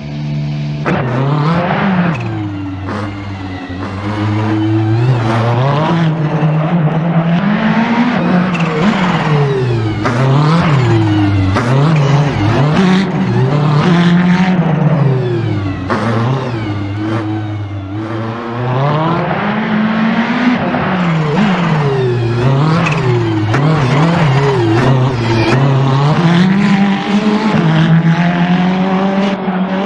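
Ferrari 488 GT3's twin-turbo V8 race engine revving hard, its pitch climbing and dropping again and again through gear changes and lifts. It grows louder in the first few seconds and fades near the end.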